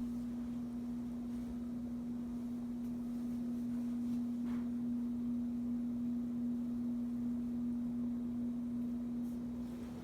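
Hampton Bay 52-inch Gazebo Plus ceiling fan motor running with a steady, single-pitched electrical hum.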